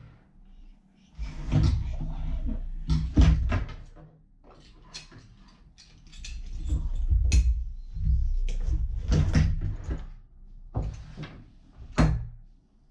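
Handling noise from the parts of an Aqua Lung Rogue BCD on a wooden table: irregular knocks, clicks and rustling of nylon straps, plastic buckles and fittings, with low thumps as pieces are moved and set down. A sharp click near the end is the loudest.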